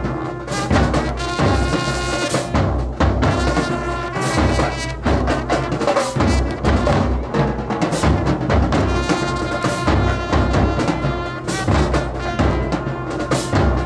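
A high school show-style marching band playing: brass (sousaphones, trumpets, trombones) holding chords over snare drums, bass drums and cymbals.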